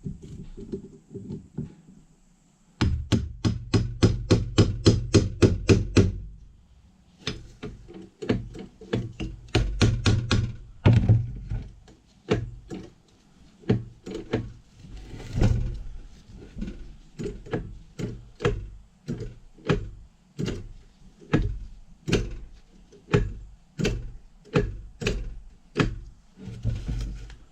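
Hammer tapping a part of a Ford 5.0 starter back down into place. A fast run of blows lasts about three seconds, followed by slower, steady taps for the rest of the time.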